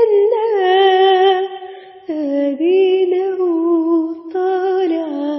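A woman singing a slow lament in Egyptian Arabic, in long-held notes with vibrato across three drawn-out phrases.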